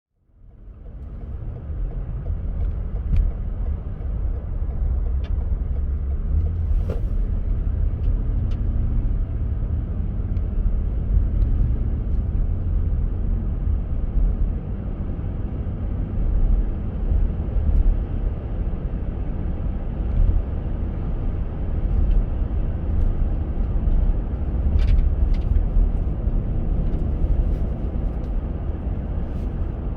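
Car driving on a snowy road: a steady low rumble of tyres and engine, with a few faint ticks. It fades in over the first second.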